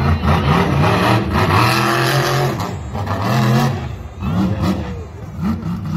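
Monster truck engine revving hard over and over, its pitch climbing and dropping as the truck drives across the dirt arena.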